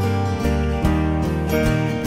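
Background music led by strummed acoustic guitar, with chords changing every half second or so.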